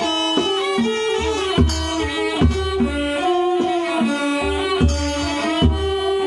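Mahori kantrum ensemble playing an instrumental passage: a bowed two-string fiddle carries a stepwise melody over deep, regular barrel-drum strokes, with other string instruments filling in.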